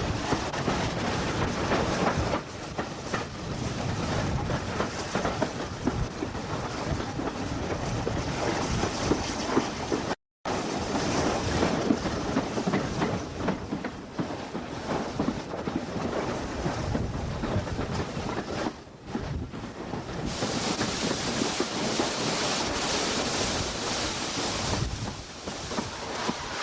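GER N7 0-6-2 tank steam locomotive running on the line, with rail noise and rattling throughout. The sound drops out briefly about ten seconds in, and from about twenty seconds in a stronger hiss comes up.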